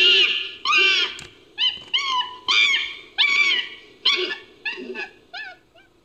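Chimpanzee calls edited into a creature sound effect: a run of about ten high, arching cries, each under half a second, coming closer together and fading toward the end.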